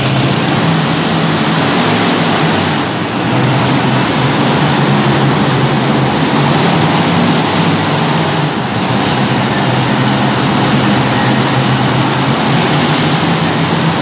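Multi-engine modified pulling tractors idling, a loud, steady engine rumble; the later tractor carries four supercharged engines. The sound dips briefly twice, about three and eight seconds in.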